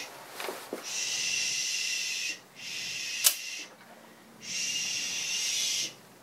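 A person shushing a dog with three long "shh" hisses, and a single sharp snip of dog nail clippers cutting a nail about three seconds in.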